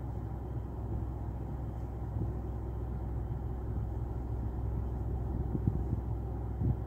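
Low, steady rumble of a car's engine idling as the car creeps slowly forward, heard from inside the cabin, with a few soft knocks near the end.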